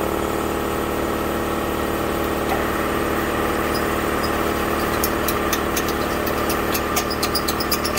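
Seat-and-guide machine's motor running with a steady hum, joined about five seconds in by rapid, irregular sharp ticks.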